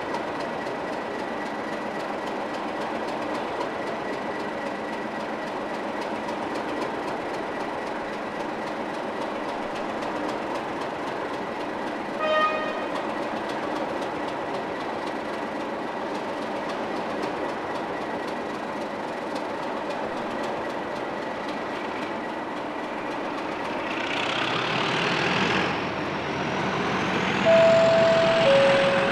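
Class 37 diesel locomotive 37606, its English Electric V12, idling with a steady whine; a brief toot sounds about 12 seconds in. Near the end the engine powers up with a slowly rising whistle as the locomotive moves off, and its two-tone horn sounds, a higher note then a lower one.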